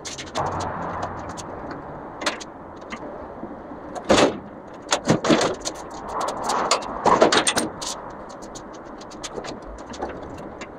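Knocks, clunks and scrapes of a 1969 Ford F100 pickup bed being lowered with a lift and settled onto the frame, with small clicks throughout and the loudest knocks bunched in the middle.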